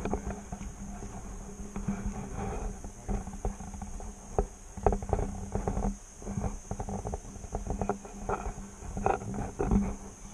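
Irregular knocks and thumps of footsteps on a wooden hanging bridge, over a steady high-pitched insect chorus and a steady low hum that drops out briefly about six seconds in.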